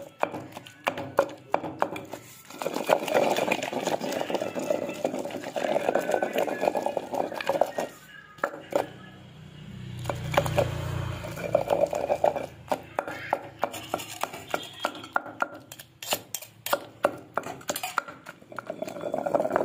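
Pestle pounding and grinding tomato and red-chilli paste in a stone mortar: a quick, uneven run of wet knocks, with a short lull about halfway.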